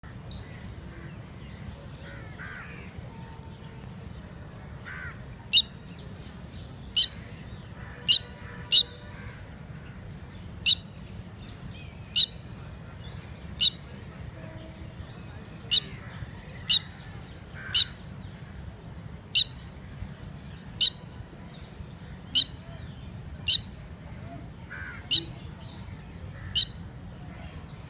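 Red-wattled lapwing calling: a run of about sixteen short, sharp, high-pitched notes, roughly one every second or so, starting about five seconds in, over a steady low background noise.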